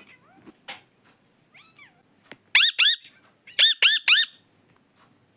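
Indian ringneck parrot giving short, high-pitched squeaky calls, each note rising and falling in pitch, in two quick clusters of about three notes, about two and a half seconds in and again a second later.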